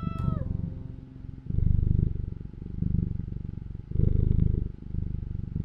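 Domestic cat purring: a low, rapidly pulsing rumble that swells and fades about every second and a quarter with each breath in and out. A brief higher-pitched sound that rises and falls is heard right at the start.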